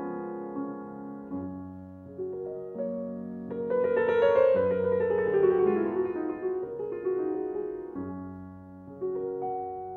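Solo piano music: slow held chords, with a louder cascading run of notes falling in pitch through the middle.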